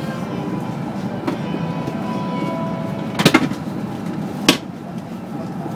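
Inside a Kyushu Shinkansen car at speed: steady running noise with a faint motor whine, and a cluster of sharp knocks about three seconds in and a single knock about a second later.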